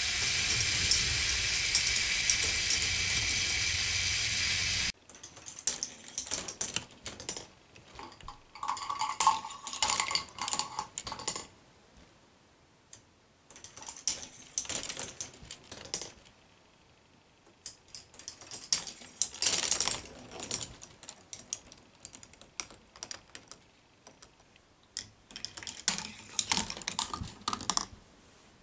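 K'nex ball machine running: plastic parts and balls clicking and clattering along the tracks in irregular bursts with quieter gaps between. For about the first five seconds there is a louder, dense, steady wash of sound that cuts off suddenly.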